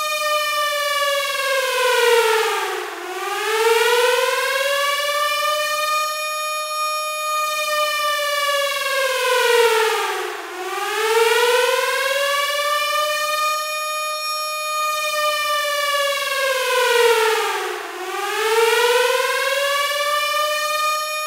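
Air raid siren wailing: a held high tone that sinks in pitch and swings back up three times, about every seven and a half seconds.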